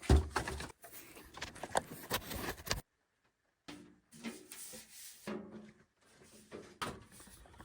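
Irregular knocks, clicks and scraping, as of things being handled and set down, cut off abruptly about three seconds in and resuming fainter about a second later.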